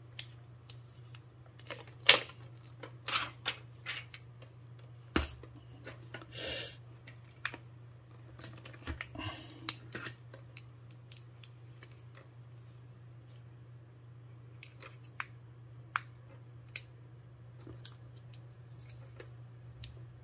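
Hands handling small objects: scattered sharp clicks and taps, the loudest about two seconds in, and a short rustle about six seconds in, over a steady low hum.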